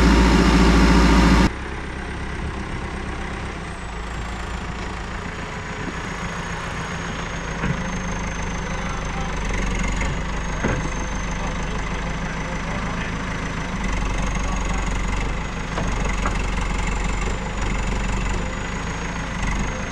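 Caterpillar backhoe loader's diesel engine running steadily, with a thin high whine over it. It is louder for the first second and a half, then drops suddenly.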